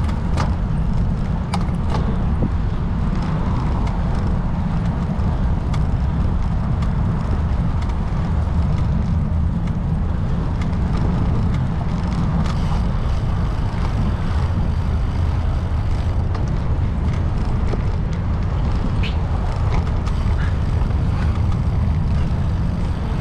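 Car driving: a steady low rumble of road and engine noise, with a few faint clicks in the first two seconds.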